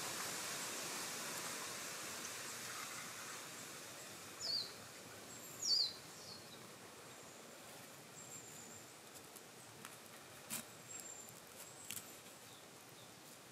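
Two short, falling whistled bird calls about four and a half and six seconds in, over a faint outdoor hiss, with a few sharp clicks later on.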